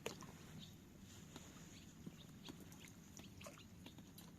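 Faint, scattered chirps of young swallows over a low steady hum, with a single sharp knock right at the start.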